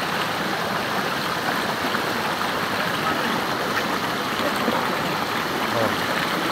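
Steady rushing of a flowing river close by, an even wash of water noise with no breaks.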